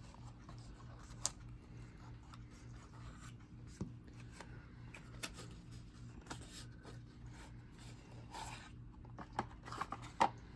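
Faint handling of a deck of UNO playing cards and its paper band and box: soft rustling with a few scattered light clicks, and a quick cluster of sharper taps near the end. A steady low hum runs underneath.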